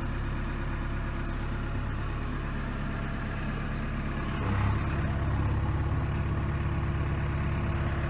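JCB 3DX backhoe loader's 4.8-litre naturally aspirated four-cylinder JCB 448 diesel engine running, heard from inside the cab. About halfway through, it runs heavier and a little louder while the backhoe joysticks are worked.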